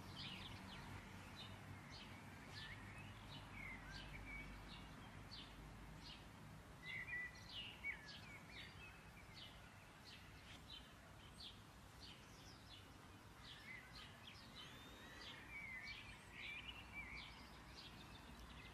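Faint birds chirping: irregular short, high chirps and twitters over a low background hiss.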